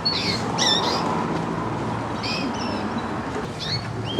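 Canaries calling: short, high, sweeping chirps in a few brief clusters, over a steady low background hum.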